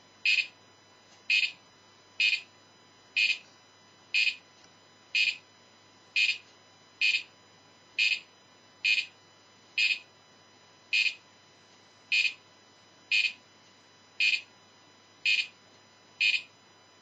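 Light-sensitive electronic cricket kit chirping through its small speaker: a short, high electronic chirp repeated about once a second, set off because the room has been darkened.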